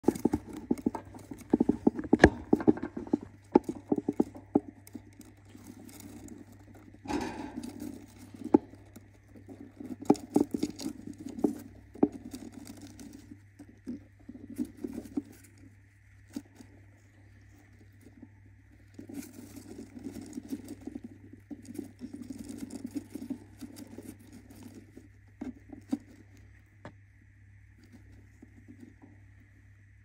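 A budgie shuffling and scratching about in a wooden nest box over its eggs: clusters of scratchy taps and rustles, busiest in the first few seconds when it flutters its wings, with quieter shuffles as it settles on the clutch. A steady low hum runs underneath.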